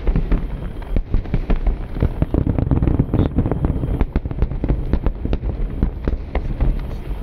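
Aerial firework shells bursting in a dense barrage, many sharp bangs a second overlapping into a continuous rumble of booms.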